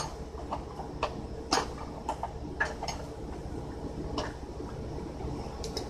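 Scattered light clicks and clinks of small metal hardware, a nut and washers, being picked up and handled, about seven separate ticks over a faint steady hum.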